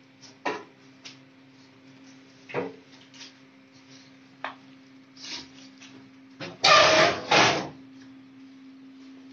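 Scattered knocks and clatters from a metal snake hook being handled while a rat snake is held, with a louder double clatter about two-thirds of the way in.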